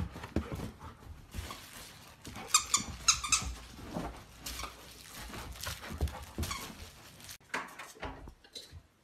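Squeaky dog toy squeaking in a quick run of about five squeaks a little over two seconds in, amid thumps and scuffling from the dogs' play.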